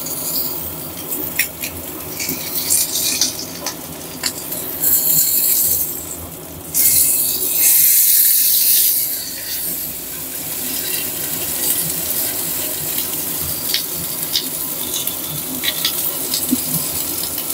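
Salmon steak sizzling as it fries in oil in a non-stick pan, with sharp clicks of metal tongs against the pan. About seven seconds in the sizzle grows much louder for a couple of seconds as the fish is turned over, then settles back to a steady fry.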